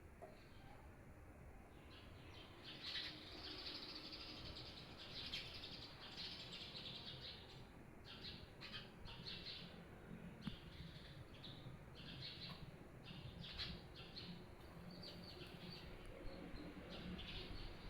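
Small birds chirping, with short high calls coming again and again in quick clusters over a low background hum.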